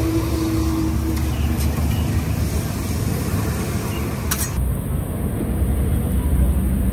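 Steady low rumble of road traffic, with a sharp click about four and a half seconds in.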